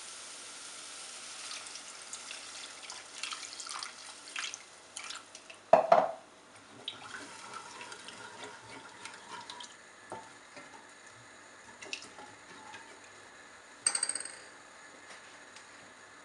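A little water goes into a hot pan of frying onion, ginger and poppy-seed paste and sizzles, and a wooden spatula stirs it in, scraping the pan. There is one sharp knock about six seconds in.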